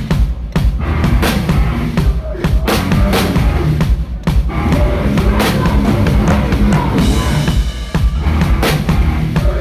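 Hardcore band playing live, a loud drum kit driving the song with kick drum and cymbal hits; the music drops out for a moment a few times.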